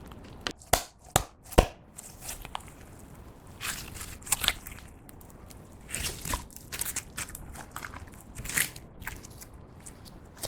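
Hands kneading and squeezing clear slime mixed with makeup: a run of sticky clicks and sharp pops in the first two seconds, then irregular bursts of wet crackling.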